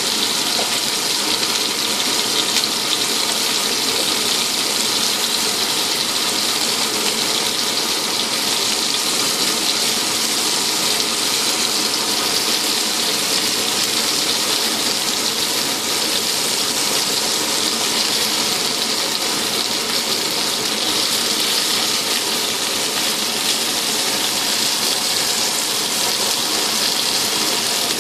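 Vegetable skewers and a flat slab frying in hot oil in a black frying pan, sizzling steadily with a fine crackle.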